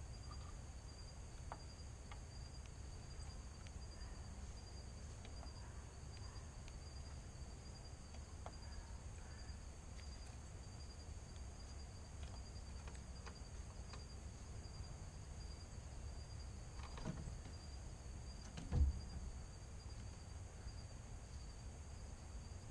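Evening insect chorus: a steady, high, faintly pulsing trill, over a low outdoor rumble. A single dull thump about nineteen seconds in, with a smaller one just before it.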